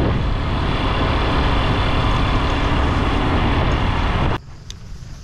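Loud, steady noise of a moving road vehicle with rushing air, which cuts off suddenly about four seconds in.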